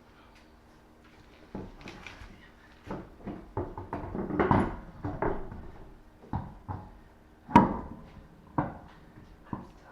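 A string of irregular knocks and clunks, as of objects being handled and set down on a hard floor, starting about a second and a half in, with the loudest sharp knock about three-quarters of the way through.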